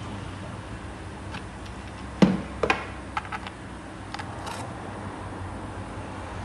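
A sharp metal knock about two seconds in, then several lighter clicks over the next two seconds, as a hand-held industrial can opener is taken off a large tin and the cut lid is worked loose from the rim.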